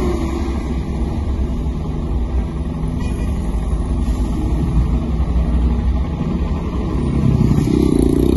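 A heavy International 9900 tractor-trailer's engine brake (jake brake) running as it descends a hill: a loud, rough, low engine rattle, heard from inside a car following close behind. It gets louder about seven seconds in.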